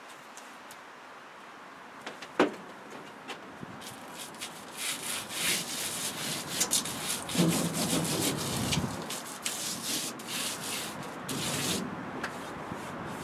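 Hands pressing and smoothing foil insulation onto the van's roof panels: a run of short, crinkling rubbing strokes from about four seconds in. A single sharp knock about two seconds in.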